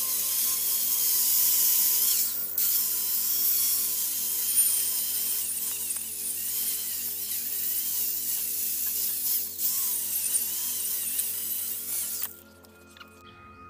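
Electric angle grinder working over a bicycle frame's metal tubes: a loud, harsh scraping hiss over a motor whine that wavers as it bites. It eases off briefly twice and stops about twelve seconds in.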